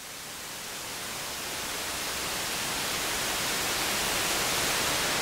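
White-noise sweep: white noise swelled up by gain automation on an exponential curve and washed through Eventide Blackhole reverb. It grows steadily louder and brighter, peaking near the end before it begins to fall away.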